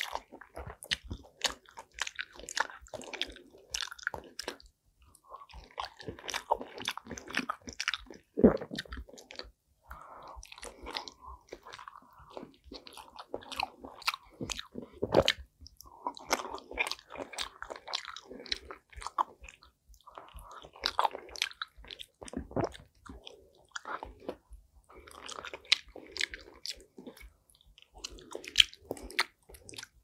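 Close-miked chewing and biting of a soft stuffed pepper: irregular wet mouth clicks, smacks and small crunches, with finger-licking.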